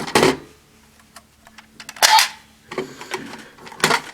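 Hard plastic clicks and knocks from a DX Grease Blizzard Knuckle toy as its hinged side covers are opened and handled: three louder clicks, near the start, about two seconds in and near the end, with faint ticks between.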